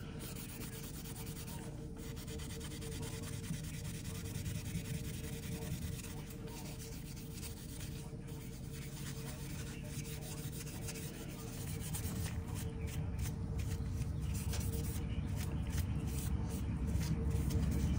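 Steady hand rubbing of a folding pocket knife to clean it after polishing, getting louder over the last few seconds.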